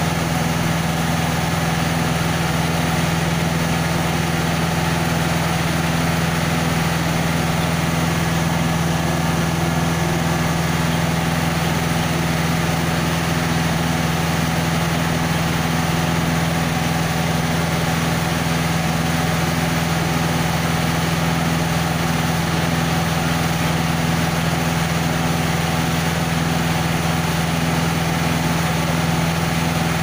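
Diesel engine of a Schwing Stetter SLM 2200 self-loading concrete mixer running steadily at a constant speed, a low, even hum that never changes.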